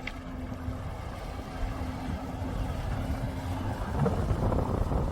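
Sea-Doo 3D jet ski's Rotax 787 RFI two-stroke twin engine running, getting louder about four seconds in.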